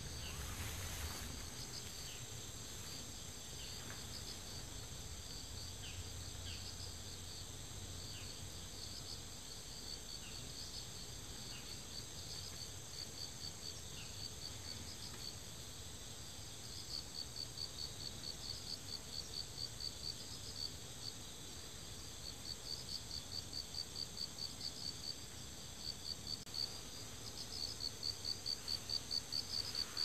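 Insects chirping: a steady high ringing underneath, with runs of rapid, evenly spaced pulses lasting a few seconds each that become more frequent in the second half.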